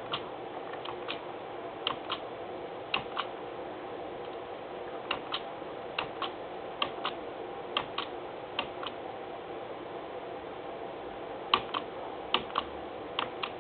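Light clicking, mostly in close pairs roughly once a second with a few gaps, over a steady low hiss.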